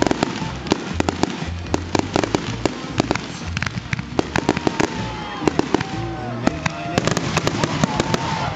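Fireworks display: a dense, irregular string of sharp crackles and pops from a sparking ground fountain and aerial shells bursting overhead.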